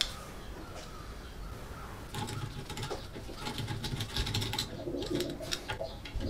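Socket wrench clicking in quick runs as it loosens the small rusted nut on a rusty airgun's rear sight, with a bird cooing in the background.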